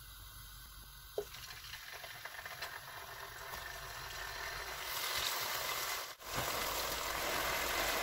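Yoghurt-marinated chicken pieces sizzling in hot cooking oil in a frying pan. The sizzle is faint at first and grows louder from about five seconds in as the pan fills, with a brief break a little after six seconds.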